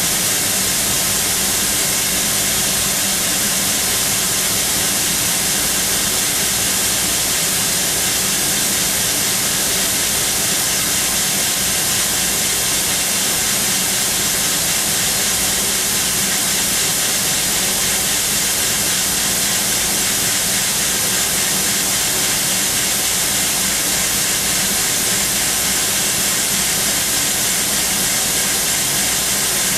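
CNC machining centre drilling hardened SKD61 tool steel with a 1 mm three-flute carbide drill on a spindle at 13,000 rpm: a steady hiss with a faint steady hum beneath it.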